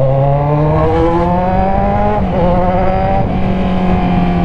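Kawasaki Z1000's inline-four engine through an Orion aftermarket exhaust, pulling up in revs for about two seconds. The revs dip at a gear change, then climb slightly and hold steady.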